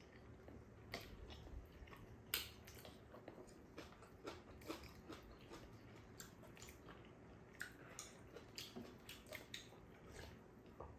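Faint eating sounds of two people eating rice-cake tteokbokki: chewing, with light, irregular clicks of metal chopsticks against bowls.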